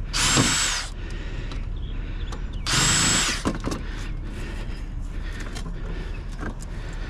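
Power drill spinning in two short bursts about two and a half seconds apart, each with a high whine that spins up and winds down, while driving out screws.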